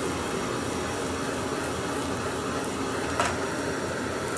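Bacon and garlic sizzling in oil in a frying pan over a gas burner flame, a steady hiss, with a brief knock of the pan about three seconds in.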